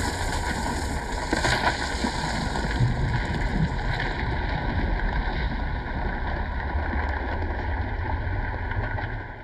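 Rumble sound effect: a steady, deep rumbling noise, like the ground rumbling, that fades out near the end.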